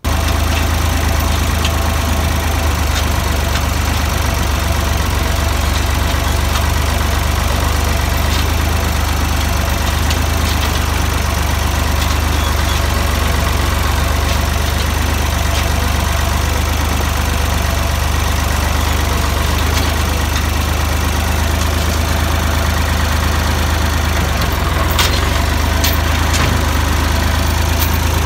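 Farm tractor's engine running steadily under way, heard from the operator's seat close to the hood and exhaust, with a few light clicks near the end.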